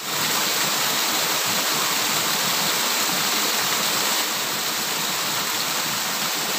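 Steady rushing of pond outflow water pouring down a small cascade into a pool, loud enough to make the spot noisy.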